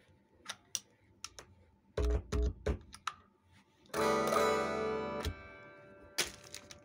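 Electric guitar played through an amplifier with a clean, undistorted tone. After a few handling clicks, some short muted plucks come about two seconds in, then a chord is strummed about four seconds in and rings for over a second before it is damped.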